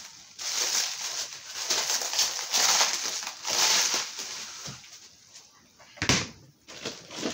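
Plastic and cardboard toy packaging rustling and crinkling in bursts as parts are handled and unpacked, with one sharp knock about six seconds in.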